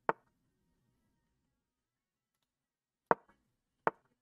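Three sharp clicks of online chess piece-move sound effects: one right at the start, then two close together about three seconds in.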